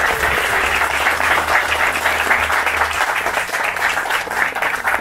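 A small crowd clapping, a round of applause that keeps going steadily and dies away at the end.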